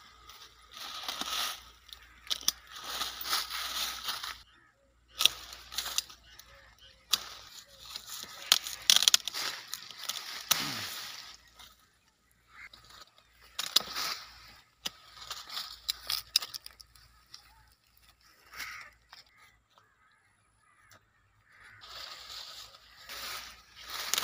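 Hand pruning shears snipping guava branches: several sharp clicks of the blades cutting wood, among the rustle of leaves and twigs being pushed aside.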